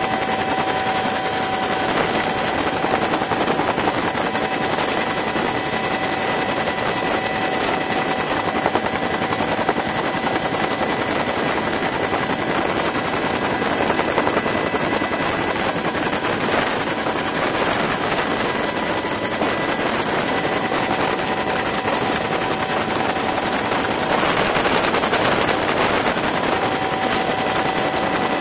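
Bell UH-1 "Huey" helicopter in flight, heard from inside the cabin: steady rotor and engine noise with a constant high whine.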